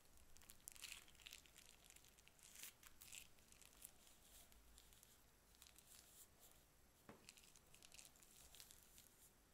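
Faint, irregular crinkling and crackling of a plastic piping bag being squeezed as thick slime is pushed out of it.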